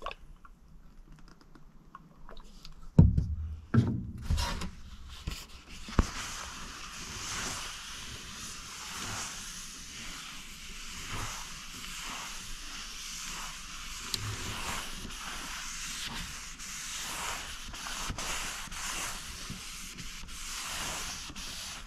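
A cloth rubbed back and forth over a sanded oak board, working mineral oil into the wood in steady, regular wiping strokes. Before the rubbing starts there are two knocks, about three and four seconds in.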